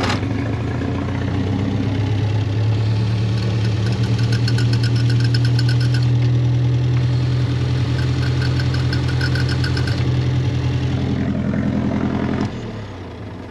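Austin Seven's four-cylinder side-valve engine idling, with a quick, even clatter from the clutch that comes twice, about four seconds in and again about seven and a half seconds in, while the clutch pedal is pressed. The owner takes the noise for something hitting the clutch and no longer suspects the throw-out bearing. The engine note drops near the end.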